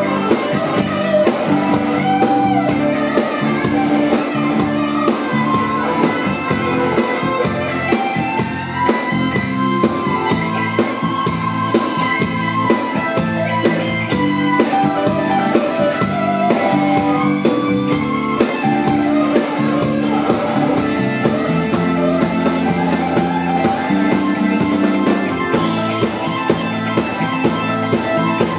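Blues-rock band playing live: guitar lines with bending notes over bass and a steady drum-kit beat.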